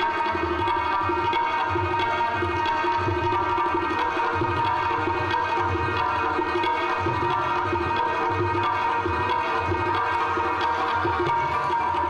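Afghan rubab and tabla playing together: plucked rubab strings ringing over a continuous tabla rhythm with deep low strokes from the bass drum.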